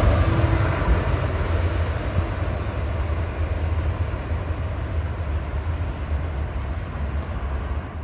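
Metro-North passenger train rumbling past and pulling away, a low rumble with wheel-on-rail noise that slowly fades.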